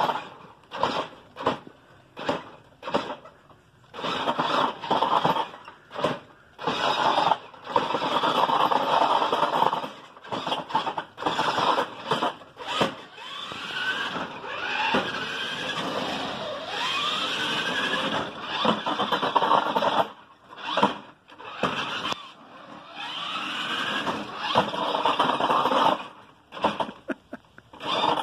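Battery-powered Tyco Big Bad Kong RC monster truck's electric drive motors and gears whining in many short bursts and a few longer runs as the truck is driven and flipped up into wheelies. The pitch rises each time the motors spin up.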